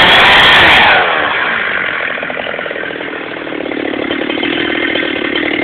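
Two-stroke chainsaw cutting into a tree trunk at full throttle; about a second in the throttle is let off and the engine winds down to a lower, evenly pulsing idle.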